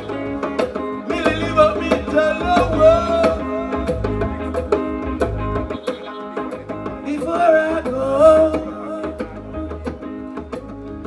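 Live band music with drums and percussion keeping a steady beat, while a man sings a wavering melody into a microphone over it through the stage sound system.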